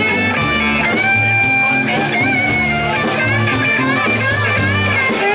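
Live rock band playing: a lead line of long held, bending notes over bass, guitar strumming and a steady drum beat.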